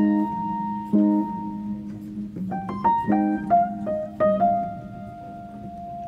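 Background piano music: a slow melody of single notes struck and left to ring.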